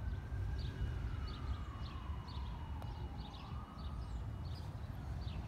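Outdoor ambience: a steady low rumble, scattered short high bird chirps, and a faint distant siren slowly rising and falling.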